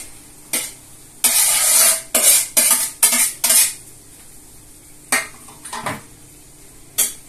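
A spoon stirring and scraping in a cooking pot, with sharp clinks against its sides: a longer scrape about a second in, a quick run of short strokes after it, then a few separate knocks.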